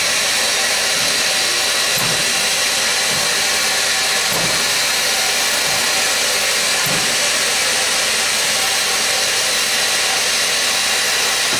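Steady, loud hiss of live steam in the cab of a working 2-8-2 Mikado steam locomotive, with its boiler under pressure.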